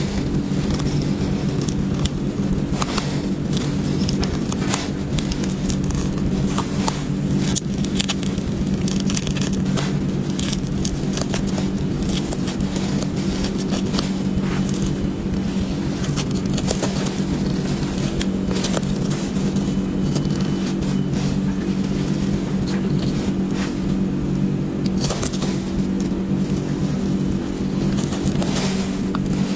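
A thin blade cutting and scraping through a ball of many dried coloured layers, giving irregular crackles and scrapes over a steady low hum.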